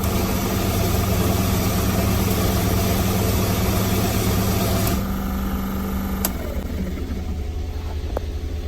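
Daihatsu Hijet van's small engine idling under a loud rushing noise, a symptom of the van's air-conditioning or fan fault. The rushing noise cuts off about five seconds in. About a second later a steady hum stops with a click, leaving the engine idling more quietly.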